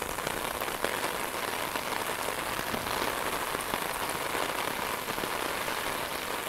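Steady rain falling on a wet street and pavement, an even hiss with a few faint drop ticks.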